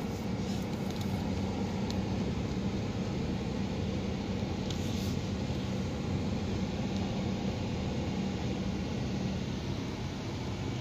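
Steady hum of a running car heard from inside its cabin, with a low drone under an even hiss.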